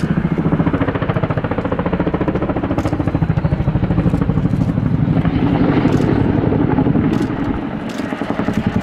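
Boeing CH-47 Chinook's tandem rotors beating in a fast, steady chop as the helicopter pulls up steeply at speed into a roller-coaster manoeuvre. The sound dips briefly near the end, then comes back.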